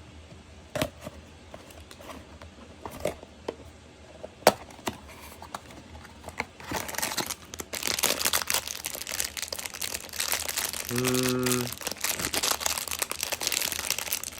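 A blind-box package being opened by hand: a few sharp clicks and taps of the box, then from about seven seconds in, continuous crinkling and tearing of the wrapper.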